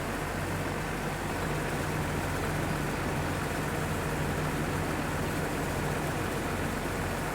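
A steady low engine or motor hum, running evenly.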